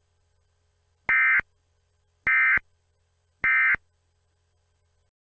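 Emergency Alert System end-of-message signal: three short, identical bursts of SAME digital data tones, each about a third of a second long and about a second apart, marking the end of the alert message.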